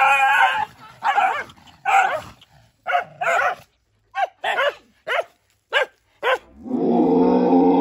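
Dogs in a fight, barking and growling at each other: a string of about ten short, sharp barks, then a long unbroken growl that starts near the end.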